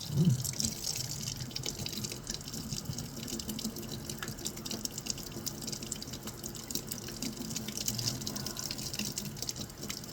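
Water running from a faucet and splashing steadily as a cat's wet fur is rinsed.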